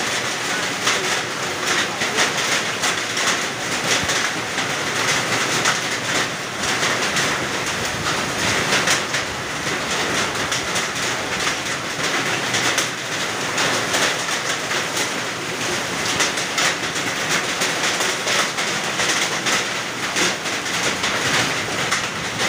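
Hailstorm: hailstones and heavy rain clattering down, a dense, steady rattle of countless small impacts.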